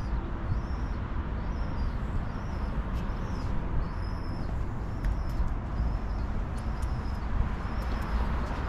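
Steady low rumble of wind and distant city noise high above a town, with a small bird's high chirps repeating every half second or so.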